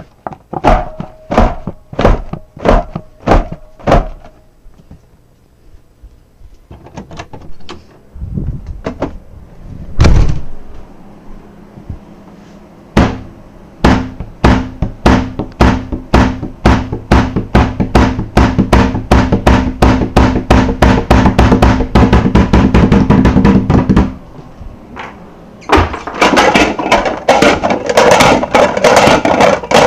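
Repeated knocking and thudding, a few knocks a second at first, then a fast run of knocks over a low steady hum, and a dense rattling clatter near the end.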